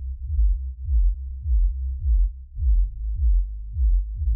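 Electronic background music, all deep bass: short kick-like strokes that drop in pitch, two or three a second, over a held low bass note.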